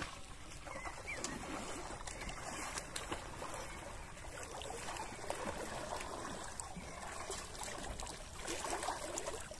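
Pond water swishing and trickling around a person wading waist-deep through it.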